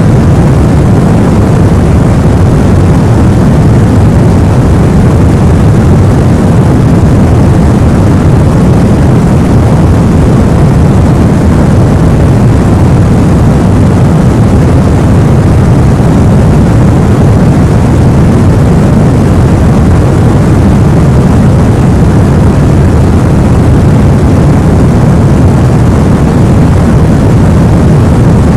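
Steady, unbroken white noise weighted toward the low end, a deep even rush with no rhythm or clicks, played as a sleep sound for babies.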